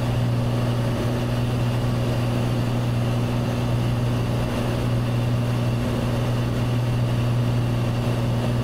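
Cessna 182's piston engine and propeller droning steadily in flight, heard inside the cabin, holding one even pitch.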